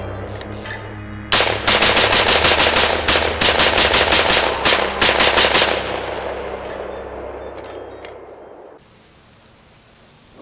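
AR-15 style semi-automatic M4 carbine fired rapidly from the hip: a quick string of about twenty shots in tight groups over roughly four seconds, starting about a second in, with the reports dying away over the next few seconds.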